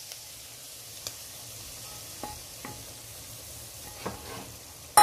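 Hot ghee sizzling in grated carrot halwa in a steel pot as a wooden spatula stirs it, with a few soft clicks of the spatula against the pot. A sharp knock comes right at the end.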